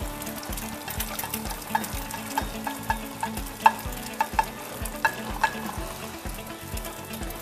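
Eggs frying in oil in a pan over a gas flame, a steady sizzle.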